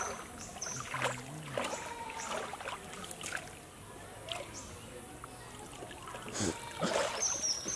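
Pond water sloshing and splashing in short, irregular bursts as a wet cast net is hauled up out of the water by hand.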